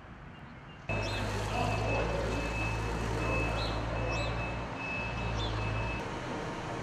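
Steady low mechanical hum with a thin, constant high whine over it, and a few faint short chirps. It comes in suddenly about a second in, after a quieter start.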